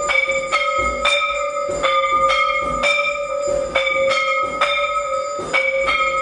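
Temple bells ringing for the aarti, struck over and over at about two strikes a second, each strike ringing on into the next.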